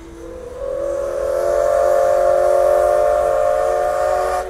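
The C62 2 steam locomotive's whistle gives one long blast as the train departs, several tones sounding together. It swells over the first second and cuts off sharply near the end.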